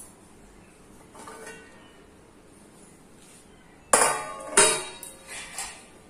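Steel plate lid and aluminium cooking pot clanking as the lid is taken off the pot. There are two sharp metal clanks about four seconds in, followed by a few lighter clinks.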